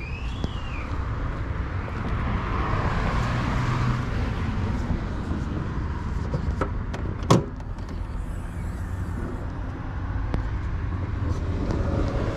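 Dodge Charger SRT Hellcat Redeye's supercharged 6.2-litre Hemi V8 idling with a steady low rumble. A single sharp click comes about seven seconds in as the hood is released and raised.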